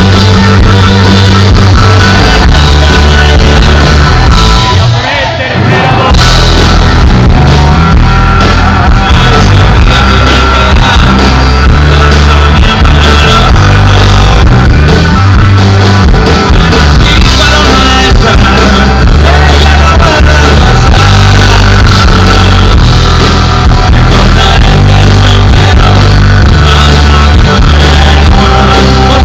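Rock band playing live, with singing over the band and a strong, steady bass line; the sound drops briefly about five seconds in.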